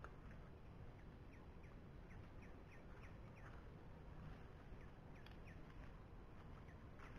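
Faint, short chirping calls from a small animal, one or two a second, pausing for a couple of seconds midway, over a low steady rumble.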